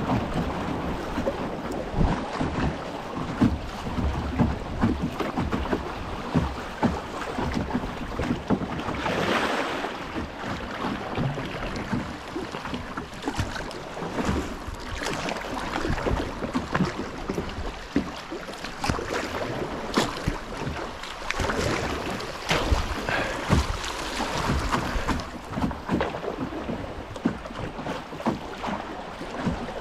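Shallow river water rushing and splashing around a canoe running through riffles, with wind buffeting the microphone. Short sharp knocks and splashes come now and then, at no regular beat.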